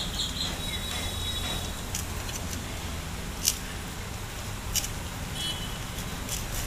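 Soft handling sounds of a water-softened papad being folded on a steel plate, with a few light clicks, over a steady low background rumble.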